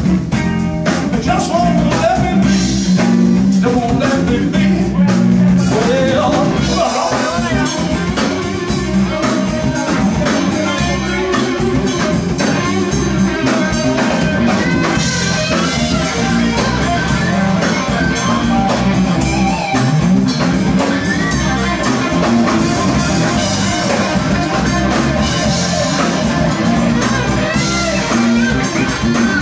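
Live blues-rock band playing: electric guitar, bass guitar and drum kit, with a singer's voice over them.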